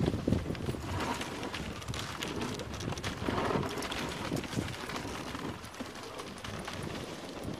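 Sled dog team running on snow: a quick, irregular patter of many paws over the hiss of the sled sliding on the snow.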